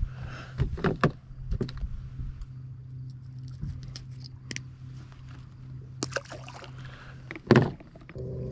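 Handling noise in a fishing kayak: scattered light clicks and knocks of gear against the hull, with one louder knock near the end, over a steady low hum.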